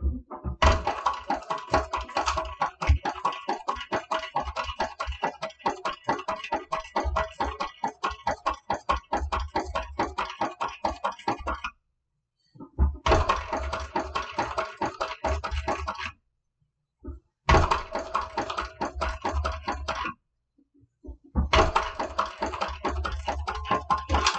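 TechSew 2750 Pro cylinder-arm walking-foot industrial sewing machine stitching a seam through leather and fabric, rapid even needle strokes over a low motor hum. It sews in four runs: one long run of about eleven seconds, then three shorter runs of three to four seconds, with brief stops between them.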